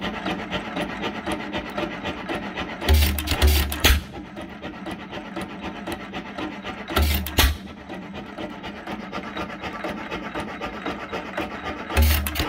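1915 Hercules 7 hp single-cylinder hit-and-miss gas engine running: between firings it coasts with a steady rapid clicking, and every four to five seconds it fires a short burst of two or three heavy low thumps, about three seconds in, again near seven seconds and near the end.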